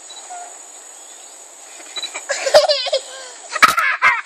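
Children laughing in short high-pitched bursts, starting about two seconds in, with a few sharp knocks among them, over a steady high insect drone.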